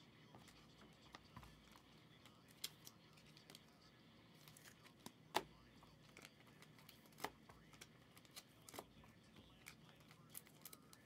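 Football trading cards being handled by hand and laid on a stack: faint, scattered light clicks and taps, the sharpest about five seconds in.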